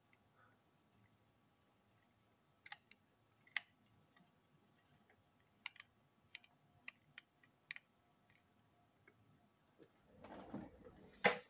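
Scattered small, sharp clicks and taps of a small screwdriver and fingers working on a plastic TrackMaster toy engine's front end, with handling rustle and a louder click near the end.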